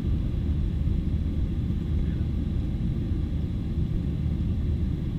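Steady low rumble of a Boeing 737-800's CFM56-7B jet engines and airflow, heard inside the cabin after takeoff, with a faint steady high whine over it.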